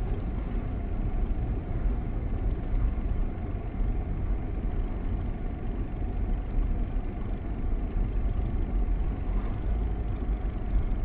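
Steady low rumble of a car's engine and road noise, heard from inside the cabin while the car is driving.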